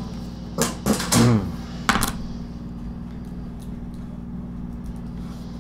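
Steady low drone of construction machinery outside, with a hum-like tone under it. A couple of short vocal sounds come about a second in, and a brief clatter about two seconds in.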